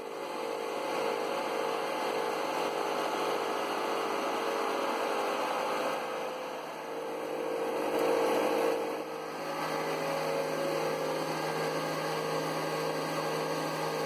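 Homemade automatic feed-making system running: motor-driven augers conveying grain into an electric John Deere hammer mill that grinds it, a steady mechanical whir with a regular pulsing. A lower steady hum joins about two thirds of the way through.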